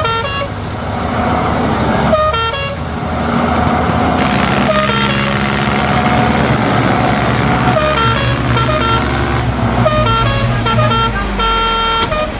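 A vehicle horn tooting in short, repeated blasts, in several clusters, over a steady engine drone that grows stronger about two seconds in.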